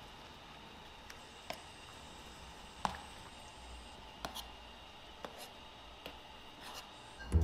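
Stainless steel serving spoon stirring soup in a stainless pot, with a handful of light, scattered clinks and taps of metal on metal.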